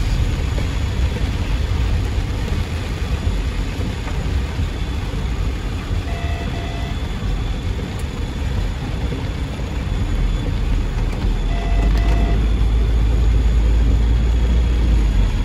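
Heavy rain falling on a moving car, heard from inside the cabin over steady road and engine rumble; the low rumble grows heavier near the end. Short beeping tones sound twice, about six and twelve seconds in, like vehicle horn toots or beeps in traffic.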